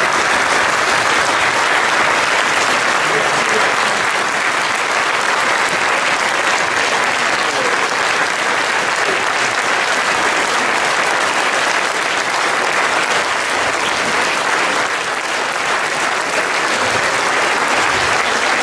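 A large crowd applauding steadily, many hands clapping together.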